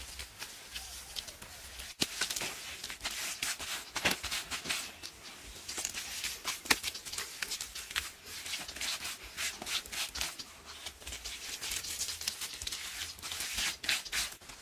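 Close-up crunching and crackling of crunchy food being eaten, a dense run of sharp crisp crackles.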